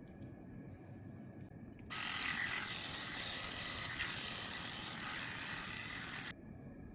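Electric pet hair clipper running for about four seconds, switching on and cutting off suddenly.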